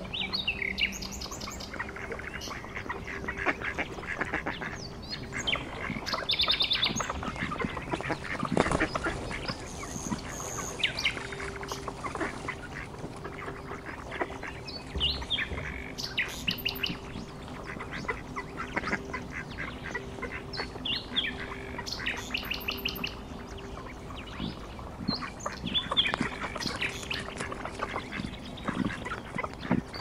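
Ducks calling among chirping birds, with many short, high calls scattered throughout.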